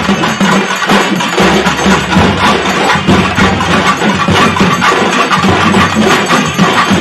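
Traditional festival drum music: loud, fast, steady drumming.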